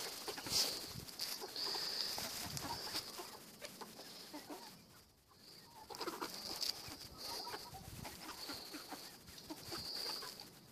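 A flock of backyard hens clucking softly as they forage, with a high, steady buzz that comes and goes behind them.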